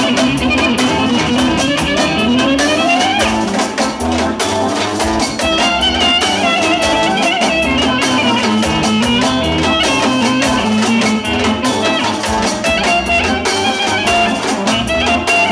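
Live band dance music: a clarinet plays a winding melody with sliding notes over drums struck with sticks and a steady beat.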